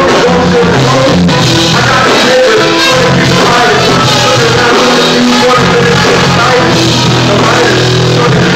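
Live band with drums and electric guitar playing loudly, with a singer's voice in the mix.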